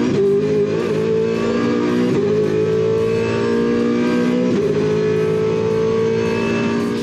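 Chev V8 Supercar race engine heard from inside the cockpit under full throttle, its pitch climbing slowly with brief breaks for quick upshifts about two and four and a half seconds in.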